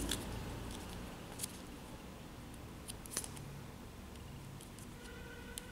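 Quiet handling of a paper sticker as its backing is peeled off by fingers, with a few small clicks.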